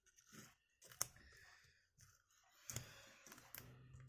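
Faint clicks of a plastic prying tool working against a tablet's screen glass and frame as it cuts through the screen adhesive. There is one sharper click about a second in and a few small clicks near the end; otherwise near silence.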